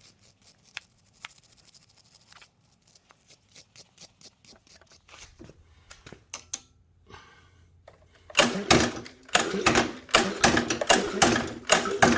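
Predator 160cc pressure-washer engine cranked by its recoil starter with the spark plug out to check for spark: a fast, even run of clicks over a low hum for about four seconds near the end. Before that, only faint scattered ticks.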